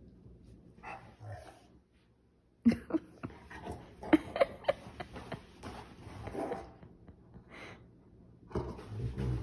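Rottweiler vocalizing in a sulking tantrum: after a quiet start, a sudden bout of whining and short bark-like yelps lasting a few seconds, then another bout near the end.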